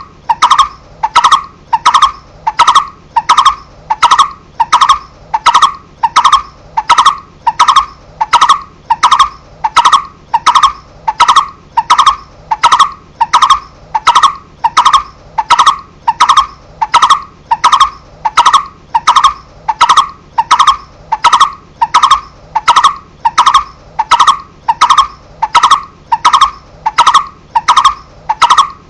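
Barbet (cu rốc) calling: a single short note repeated at a steady, even pace of about one and a half notes a second, with no break.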